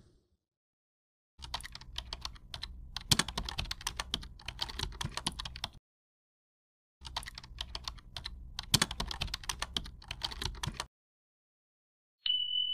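Keyboard typing sound effect: two runs of rapid key clicks, each about four seconds long, with a short pause between them. A single bright ding comes near the end.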